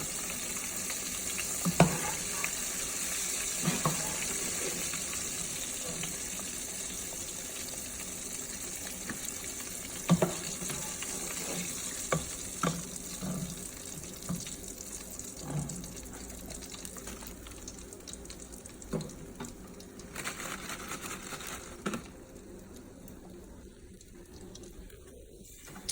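Hot cooking oil sizzling in a pan after deep-frying shrimp, with a few light clinks of utensils. The sizzle slowly fades and drops away near the end.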